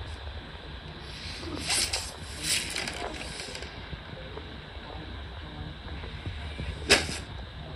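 A single sharp clang about seven seconds in, from a frying pan striking a man's head, preceded by a few soft rustling and scuffing movement sounds over a low steady rumble.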